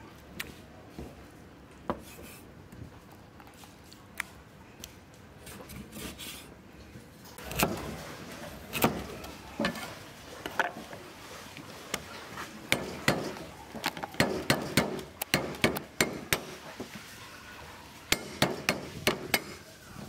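Kitchen cleaver knocking on a wooden chopping board while ginger is cut. A few light clicks come first, then, from about a third of the way in, a run of irregular sharp knocks.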